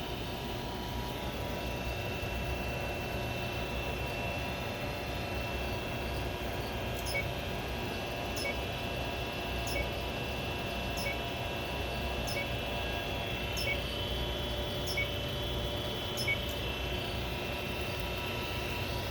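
Cutera Limelight IPL system running with a steady hum of several fixed tones. In the middle, about eight faint clicks come evenly, roughly one every second and a quarter.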